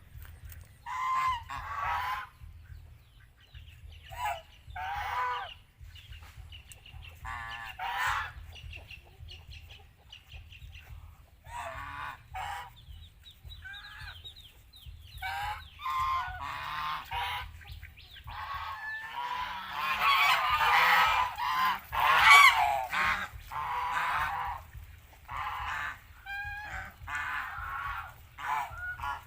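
Flock of domestic geese honking, calls coming again and again. Many birds call at once and the honking is loudest about two-thirds of the way through.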